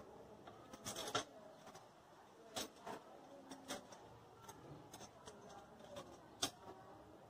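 Scattered small metallic clicks and taps of countersunk screws and a metal luggage-carrier plate being handled and set in place on a motorcycle's rear frame. There are about six separate clicks, the sharpest about six and a half seconds in.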